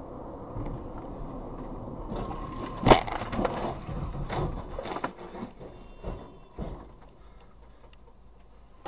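Car crash heard from inside a following car. Steady road noise, then about three seconds in a loud crash as a car strikes and starts to roll. A run of clattering knocks and scrapes follows as it tumbles onto its roof, dying away a few seconds later.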